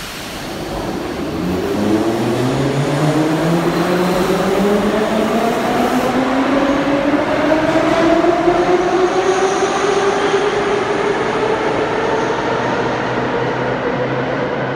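An 81-717.5/714.5 'Nomernoy' metro train pulls out of the station. Its traction motors give a whine of several tones that rise steadily in pitch as it accelerates, then level off near the end, over the rumble of the wheels on the rails.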